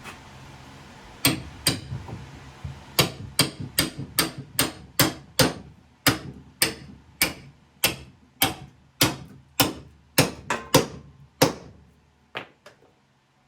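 A hammer striking repeatedly: about twenty sharp blows, roughly two a second, each with a short ring. They stop near the end.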